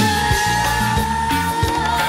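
Live cumbia band playing, with a female singer holding one long note that starts steady and wavers with vibrato near the end, over bass and regular drum beats.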